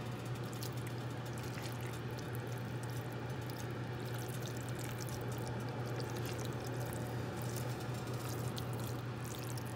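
Spatula stirring thick ground-beef sloppy joe mixture in a skillet, with small wet ticks over a steady low hum.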